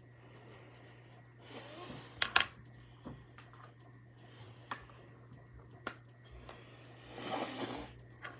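A person breathing out hard through the nose twice, once about a second and a half in and once near the end. In between are short sharp clicks and taps of makeup items being handled; the loudest is a pair of clicks about two seconds in.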